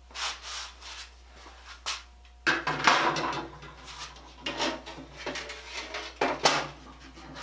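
Handsaws being laid down and moved about on a wooden workbench: steel blades scraping and clanking against one another and wooden handles knocking on the bench, in a string of irregular knocks and scrapes that grows louder about two and a half seconds in.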